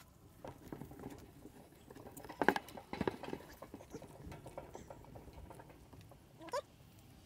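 Allen key clicking and scraping in the head of a tight, paint-stuck housing bolt on a Teleflex helm pump as it is worked loose, with a couple of sharper clicks a few seconds in and a short squeak near the end.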